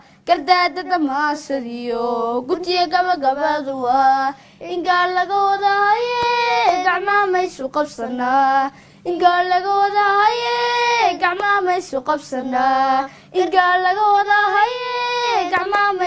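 A young girl singing a melody in phrases, several of them ending on a long held note, with short breaks between phrases.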